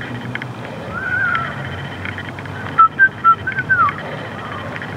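A person whistling a short tune: one wavering note about a second in, then a quick run of short loud notes near the middle, ending on a falling slide.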